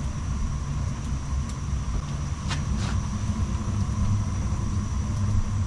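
Weil-McLain EGH-125 gas-fired steam boiler running, a steady low rumble from its burners with a faint steady high whine over it. Two light clicks come about halfway through.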